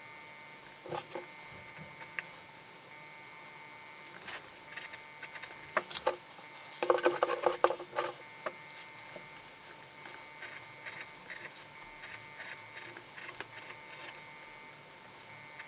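Light clicks and taps of small hard parts being handled, with a brief burst of clattering about seven seconds in.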